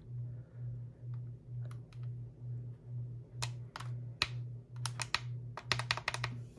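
Plastic front-panel buttons of an Etón Zoneguard weather alert radio clicking as they are pressed: a few single clicks, then a quick run of presses near the end. Under them runs a low hum that swells and fades about twice a second.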